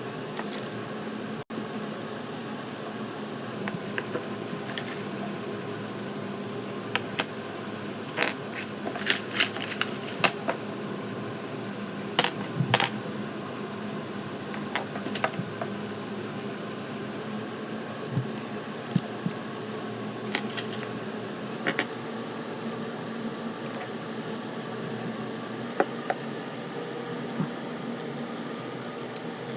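Scattered light clicks and clinks of small plastic trimmer-kit parts and packaging being handled, busiest in the first half, over a steady background hum.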